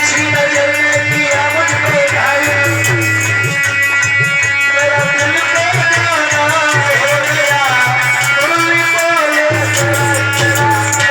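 Indian devotional music: a wavering melody over a steady low drone, with fast, even percussion strokes.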